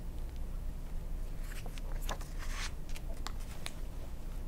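Faint rustling and a few small clicks of a hardcover picture book being handled, over a low steady room hum.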